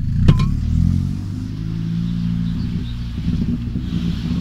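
Remapped Škoda Octavia RS 1.8T turbocharged four-cylinder engine with a custom exhaust and cold air intake, running while the car is driven and heard from inside the cabin. A sharp click sounds about a third of a second in.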